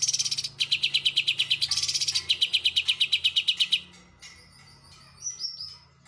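Caged greater green leafbird (cucak ijo) singing a loud, rapid trill of quick repeated high notes, about ten a second, with short breaks near the start and about two seconds in. The trill stops about four seconds in. Quieter short calls follow, with a few falling notes near the end.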